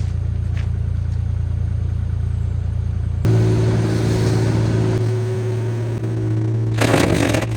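Kubota KX040 mini excavator's diesel engine running steadily. About three seconds in the engine note changes abruptly, and near the end a louder clattering noise joins it.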